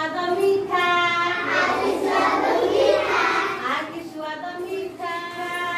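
Children singing a song together in unison, in phrases with held notes.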